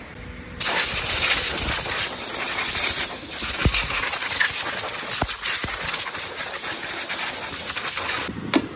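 A loud steady hiss that starts about half a second in and cuts off suddenly near the end, with two short knocks in the middle.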